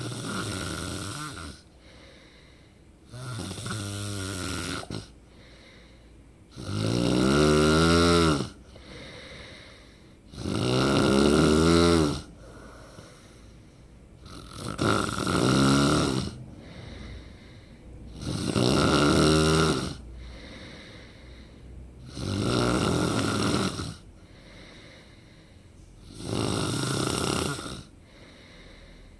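A person snoring loudly in a steady rhythm: eight long snores, one about every four seconds, each with a clear pitch that slides in some of them.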